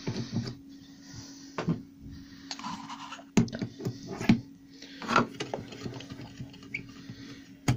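Router cutters being swapped by hand: a series of short metallic clicks and knocks as a straight cutter is lifted out of the router's collet and the steel shank of a slotting cutter is pushed into it, with light handling rustle between.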